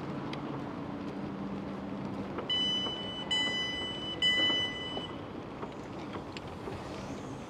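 Three electronic beeps, each just under a second long and two-toned, starting about two and a half seconds in, over the steady background noise of a station platform beside a stopped electric train.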